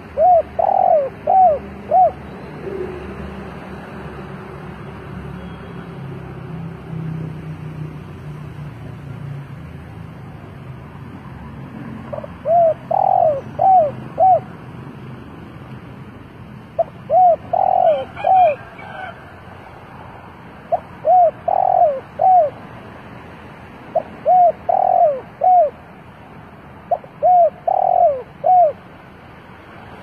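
Spotted dove cooing: six phrases of three or four arched coo notes, each with one louder, longer note in the middle. After the first phrase there is a pause of about ten seconds, then the phrases come about every three and a half seconds.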